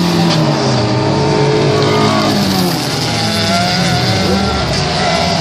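Engines of several dirt-track racing cars revving hard, their pitch climbing and dropping, overlapping one another with gear changes.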